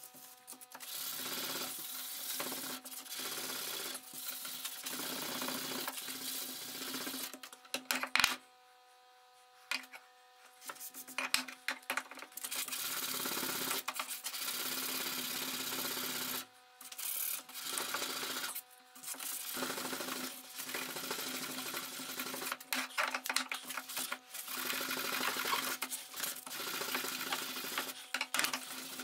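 Sandpaper rubbed back and forth by hand over the steel blade of a rusty cleaver, sanding off the rust: a scratchy rubbing in long spells with short breaks. A sharp knock about eight seconds in is followed by a brief pause.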